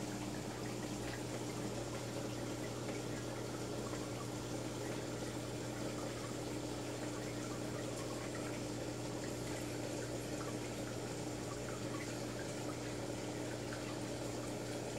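Aquarium filter running: a steady hum under trickling, bubbling water, with small scattered pops.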